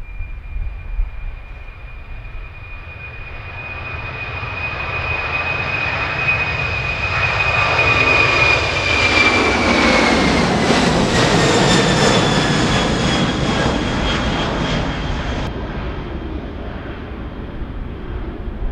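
Twin-engine Boeing 767 airliner at takeoff power, its jet engines giving a high whine over a deep rumble that grows louder as it lifts off and passes close. The whine drops in pitch as the jet goes by, and the sound then fades as it climbs away.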